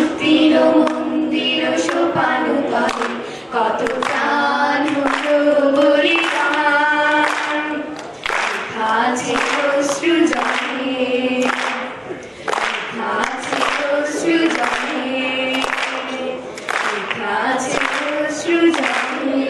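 A group of voices singing a song together, largely unaccompanied, in long held phrases.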